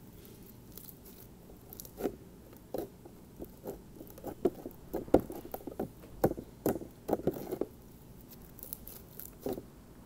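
Foam-bead slime being squeezed and pressed in the hands, giving irregular crackling pops and clicks that are busiest in the middle and thin out near the end.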